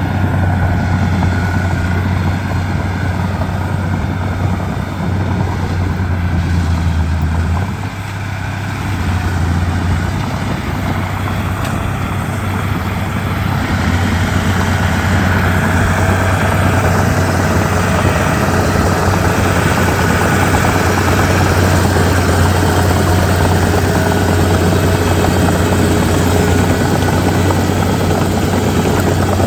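Komatsu D31P bulldozer's diesel engine running steadily with a low drone, dipping briefly about eight seconds in.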